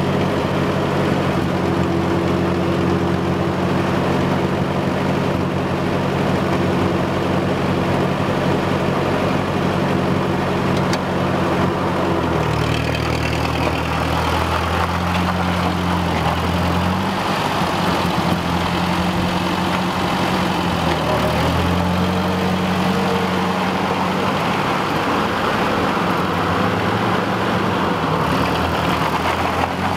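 Ford 640 tractor's four-cylinder engine running steadily. Its speed picks up about twelve seconds in as the tractor is driven off, then dips briefly and recovers a little past two-thirds of the way through.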